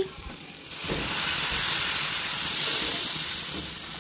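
Water poured into a hot steel kadhai of sautéed vegetables, hissing and sizzling as it hits the hot pan. The hiss starts about a second in and fades toward the end.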